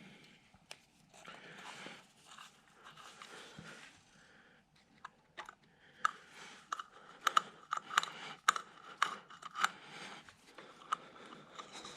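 Faint scraping and a run of small sharp clicks and taps from hand tools working on a small engine, as the cover over the ignition points is being taken off. The clicks come mostly in the second half.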